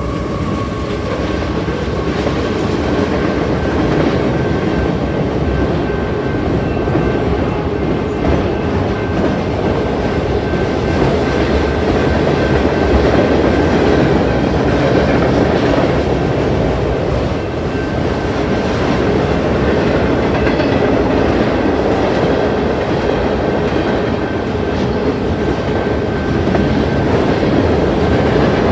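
Freight cars of a Union Pacific mixed freight train rolling past at track side, a steady heavy rumble with wheels clacking over the rail joints.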